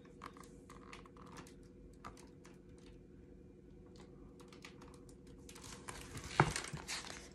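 Handling of a picture book: faint scattered ticks and rustles, then a page being turned, a paper rustle ending in a sharp flap about six and a half seconds in.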